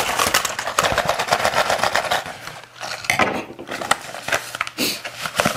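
Plastic courier mailer crinkling and rustling as it is pulled apart and emptied, with small boxes knocking onto a tabletop.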